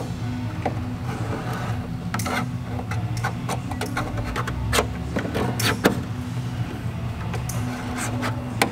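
Marker pen scratching and rubbing in short strokes as it traces round a speaker mounting ring on a steel car door, with light clicks from the ring against the metal, over a steady low hum.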